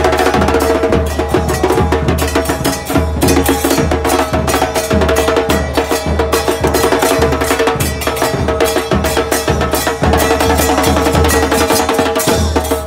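A crowd of football supporters chanting in unison to a steady pounding drumbeat, with sharper percussion strikes over it.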